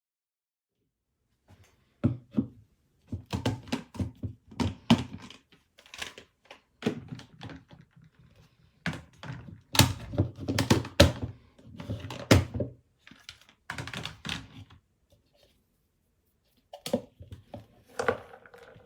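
Irregular runs of plastic knocks and clicks: a plastic microwave rice cooker bowl and its lid being handled and set into a microwave.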